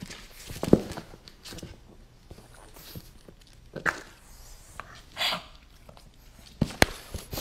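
English bulldog puppy pawing at an ice cube on a wooden floor: scattered knocks and slaps of paws and ice on the boards, the loudest about a second in and two sharp ones near the end, with a short hissy noise around five seconds in.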